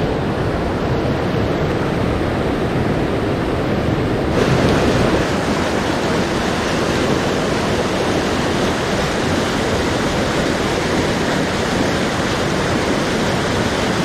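Mountain stream rushing over boulders in whitewater rapids close by, a loud, steady noise of running water.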